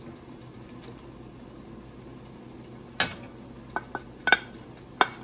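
Wooden spatula knocking against a glass bowl as shredded cheese is scraped out of it into a pot: about six sharp clacks, starting about three seconds in, the loudest a little after four seconds.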